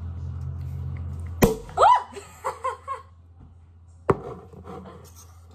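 A Prosecco cork pops out of the bottle about a second and a half in, followed at once by a woman's delighted squeal and laugh. A low steady hum runs underneath before the pop, and a single sharp knock comes about four seconds in.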